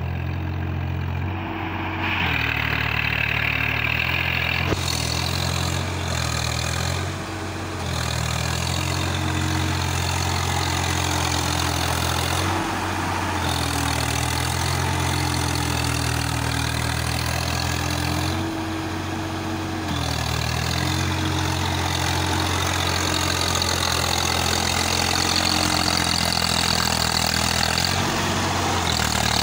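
Swaraj 855 tractor's three-cylinder diesel engine running under load while it drives a rotavator through a flooded paddy to puddle it. The engine note dips and recovers several times, with a steady rushing noise above it.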